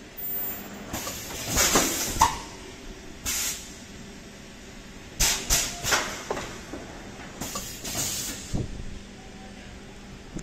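PET jar blow molding machine cycling: repeated bursts of compressed-air hiss from its pneumatic valves and cylinders, in clusters about 1 to 2 seconds in, near 3 seconds, around 5 to 6 seconds and again around 8 seconds, over a steady low hum.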